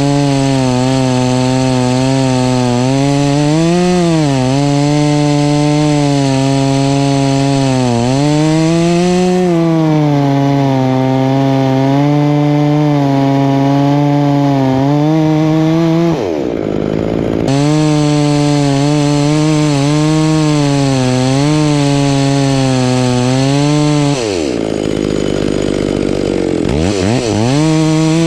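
Chainsaw running at high revs while ripping a log lengthwise along the grain, its engine note wavering under load. About halfway through and again near the end the revs drop sharply and climb back up.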